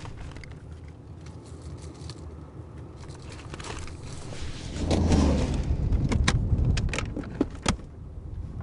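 Rummaging through a handbag in a moving car's cabin: rustling, with several sharp clicks and clinks of things in the purse over a steady low road hum. It grows louder about halfway through.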